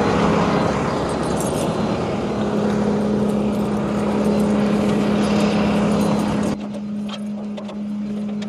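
An engine running steadily with a low hum. A broader rushing noise over it drops away about six and a half seconds in, leaving the steady hum.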